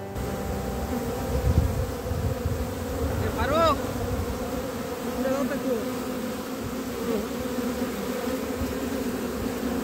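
Honeybees swarming in large numbers around open hive boxes, a dense steady buzzing, with a brief higher rising-and-falling whine about three and a half seconds in.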